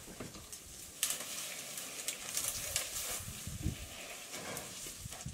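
An African elephant feeding in a tree: leaves rustling and twigs crackling and snapping as it pulls at branches, with a couple of low thuds.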